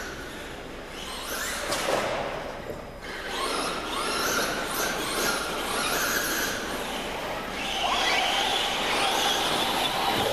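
Small, high-revving racing engines whining around the track, their pitch rising and falling as they pass, with a louder, higher pass near the end.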